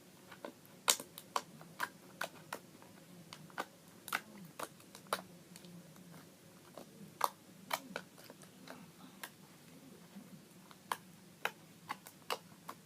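Slime being poked and squeezed by hand, giving irregular sharp clicks and small pops, about two a second.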